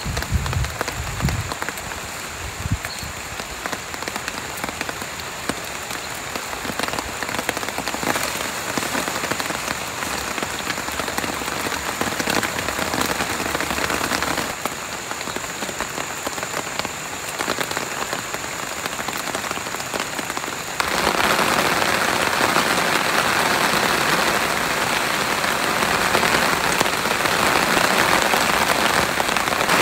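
Steady rain falling, an even hiss whose level shifts in steps a few times and is loudest in the last third, with a few low thuds in the first seconds.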